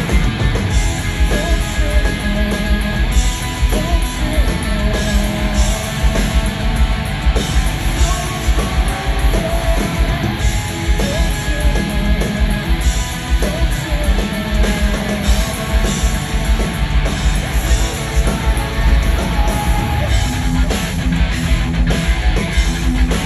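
A live hard rock band playing loudly: electric guitar through an amplifier over a drum kit, with a steady driving beat.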